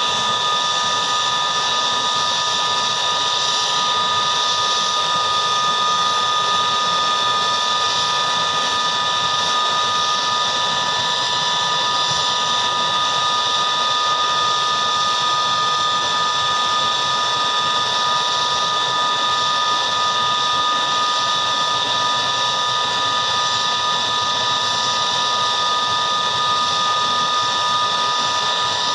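Boeing CH-47 Chinook's twin turboshaft engines running at ground idle, a steady high turbine whine of several fixed tones over a rushing hiss, with the tandem rotors turning slowly on the ground.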